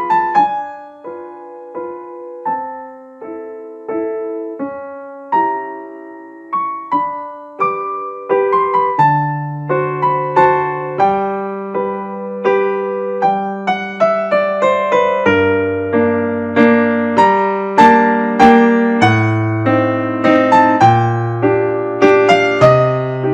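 Background piano music: a gentle melody of struck notes that grows fuller about nine seconds in, when a lower bass line comes in.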